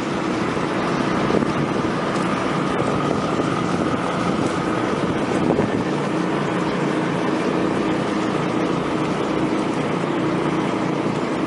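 An engine running steadily at constant speed, with wind noise on the microphone.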